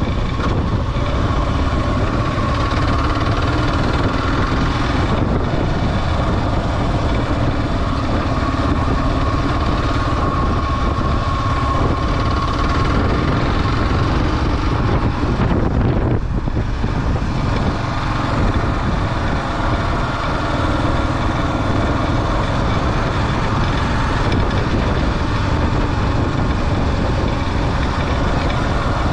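Kawasaki KLR 650's single-cylinder four-stroke engine running under way on a dirt road, heard from a camera on the bike with wind and road noise; the engine note shifts as the throttle changes, and the sound briefly dips about sixteen seconds in.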